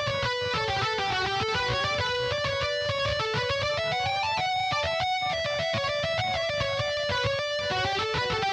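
Roland AX-Synth shoulder keyboard (keytar) playing a fast melodic run of single notes in an electric-guitar-like tone, over a steady low accompaniment.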